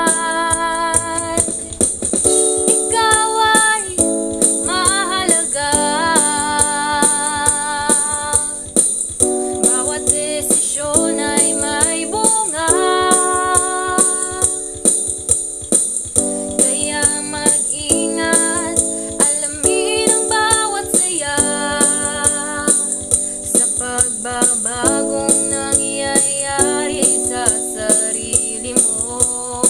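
A girl singing a Tagalog pop song over backing music with a steady beat and a high rattling shaker-type percussion.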